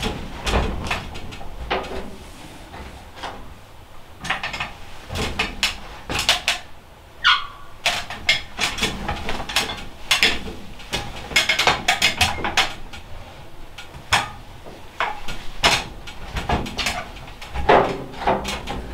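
Irregular metal knocks, clanks and scrapes as a black stovepipe is handled and fitted, along with steps on an aluminium stepladder.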